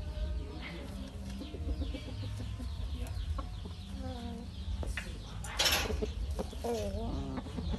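Rooster clucking in short low calls, with a brief loud rustle a little past the middle, over a steady low rumble.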